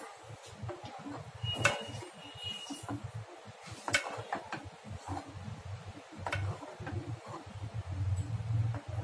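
A steel spoon clinks and scrapes against a metal pot while milk is stirred as vinegar curdles it. A few sharp clinks come about two seconds apart, one ringing briefly, over a low rumble.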